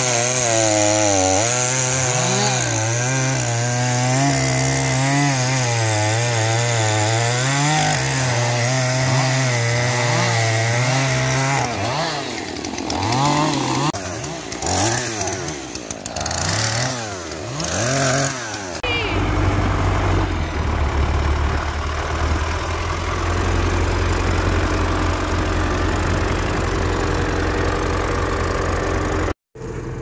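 Two-stroke chainsaw cutting through a log, its engine note wavering up and down under load. From about twelve seconds in it is revved up and down several times. For the last ten seconds a steadier, lower running sound takes over.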